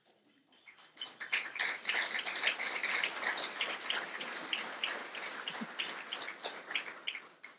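Audience applauding: many people clapping, starting about a second in, building quickly and tapering off near the end.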